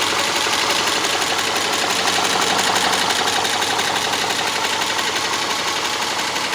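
Subaru Legacy 2.5 SOHC flat-four engine idling with a fast, even ticking over the top of the running noise: the ticking noise the owner is asking about.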